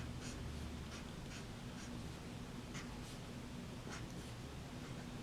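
Pen scratching in short, irregular strokes, about one every half second, as a structure is written out. A faint steady hum sits underneath.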